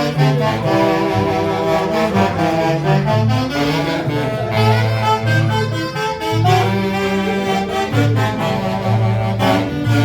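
Live tunantada music from an Andean orquesta típica, with saxophones playing the melody over a steady, rhythmic bass line.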